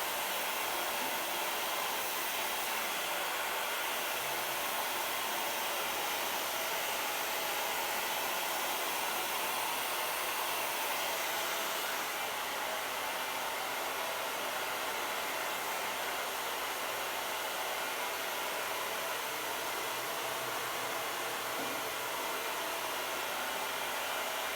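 Hair dryer running steadily on its hot setting, blowing onto a dried-out refrigerator door gasket to soften the rubber so it returns to shape and seals again.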